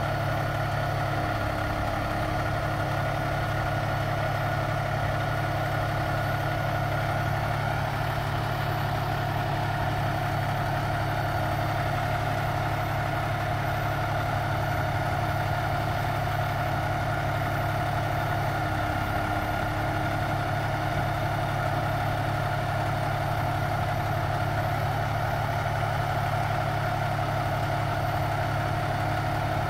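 Diesel engine of a parked semi truck idling steadily.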